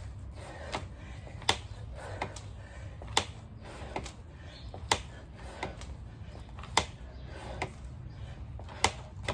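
Sharp knocks repeating at a steady rhythm, about one every 0.8 s, with every other knock louder, over a low steady hum.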